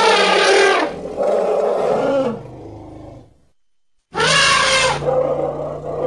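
Stock animal roar sound effects: two loud, growly roars back to back that tail off and cut to a moment of silence, then another roar starts about four seconds in.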